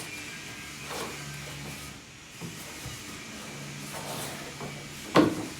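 Handling and packing noises: light knocks and rustling, with one sharp knock about five seconds in.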